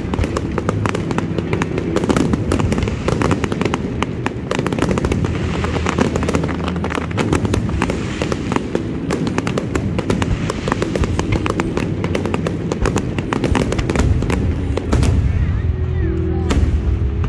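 Aerial firework shells bursting overhead, a dense unbroken run of sharp pops and crackles from crackling-star effects, with music playing underneath.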